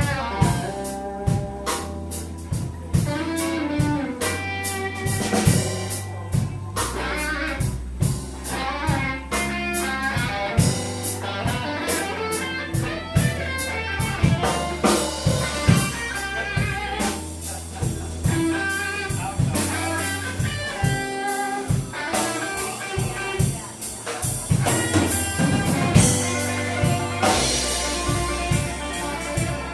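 Live blues band playing a slow blues, with an electric guitar solo over bass, drum kit and keyboards.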